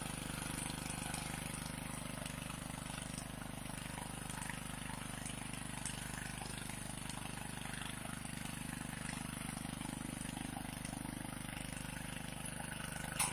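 Honda FJ500 power weeder's small single-cylinder four-stroke engine running steadily as it pulls a ridger tine through the soil, cutting a furrow. A sharp click near the end.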